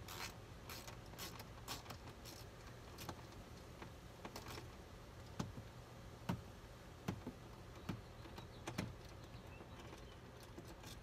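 Faint clicks and ticks of a screwdriver backing a T20 Torx screw out of a truck door panel. In the second half there is a run of about five sharper clicks, roughly once a second.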